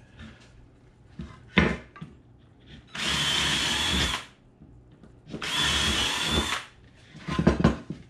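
Cordless drill running in two short bursts of about a second each, with a steady whine, reaming out bolt holes through wooden chair boards. A sharp knock comes before the drilling and a clatter of knocks after it, as the boards are handled on the bench.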